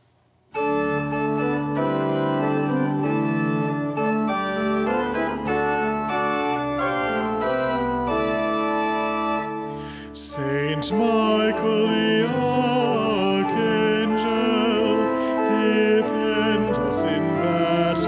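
Organ playing sustained chords as the hymn's introduction; about ten seconds in, a solo voice begins singing the hymn over the organ.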